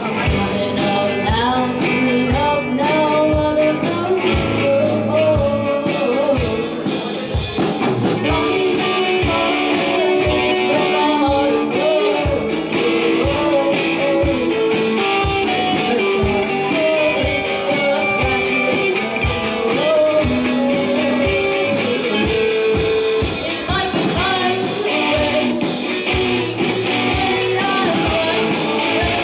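A live rock band playing a song: drum kit keeping a steady beat under electric guitar and a sung melody.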